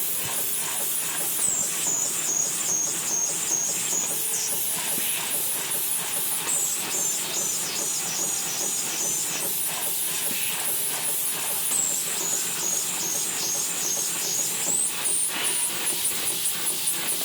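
Fin-forming machine making corrugated fins for car air-conditioning heat exchangers, running with a steady hiss, rapid rhythmic clatter and a high whine that drops and climbs back in slow cycles.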